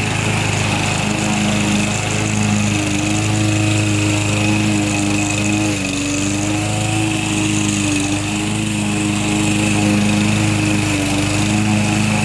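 Briggs & Stratton 550EX 140cc engine on a walk-behind push mower, running steadily at cutting speed as it mows wet grass. Its pitch sags briefly about halfway through, then recovers.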